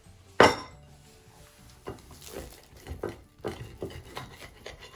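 A plate set down with one sharp knock on a wooden table about half a second in, followed by several lighter knocks and rubbing as the plate and sandwich are handled.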